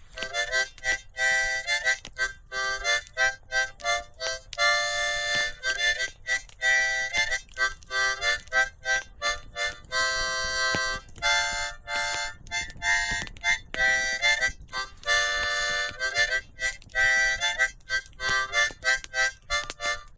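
A harmonica played live, a simple tune of chords in short rhythmic phrases with brief breaths between them.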